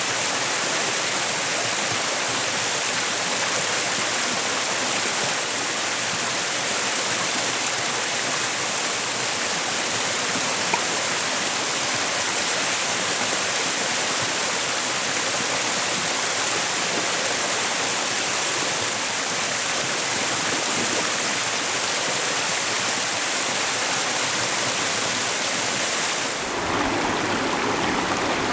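Mountain headwater stream, its water rushing and babbling steadily. Near the end the sound switches abruptly to a second stream with more low rumble.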